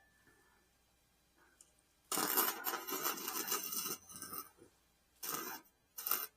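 Arc welding crackle: one weld of about two seconds, then three shorter bursts.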